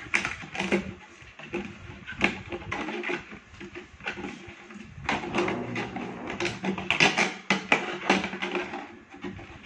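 A blade cutting through the wall of a thin plastic bottle: irregular crackling clicks and scrapes, thickest in the second half, as the plastic is sawn and flexed.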